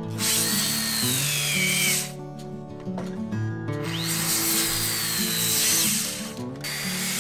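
Handheld electric circular saw cutting through 105 mm square Japanese cypress (hinoki) lumber, in two long passes with a third starting near the end. The motor's high whine sags in pitch as the blade bites into the wood. Background music plays underneath.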